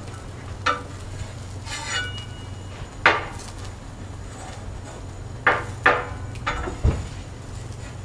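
Metal spatula clacking and scraping against a steel Blackstone griddle top as it works under the pancakes: a handful of sharp metallic clacks, the loudest about three seconds in, with a quick cluster between five and seven seconds.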